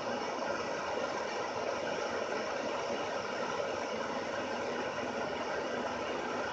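A handheld gas torch burning with a steady, even hiss as its flame heats a dab nail.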